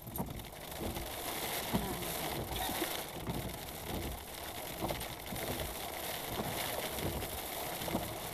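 Hail and rain hitting the roof and windscreen of a stationary car, heard from inside the cabin as a steady dense patter of many small irregular taps.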